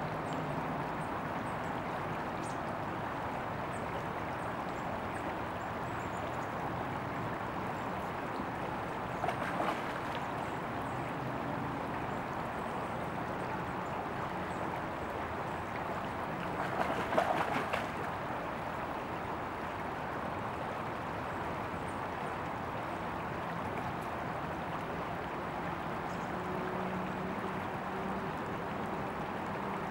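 Shallow gravel creek running steadily, a continuous rush of water, with two brief louder splashing bursts about nine and seventeen seconds in.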